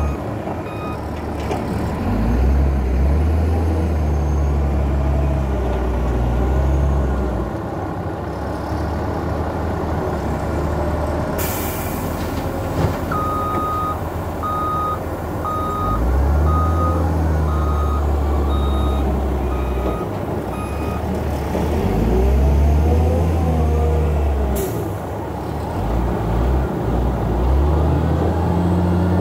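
CAT 966H wheel loader's diesel engine revving up and falling back again and again as it lifts and dumps a bucket load. Its reversing alarm beeps steadily for several seconds around the middle. Two short sharp hisses of air come about thirteen seconds apart.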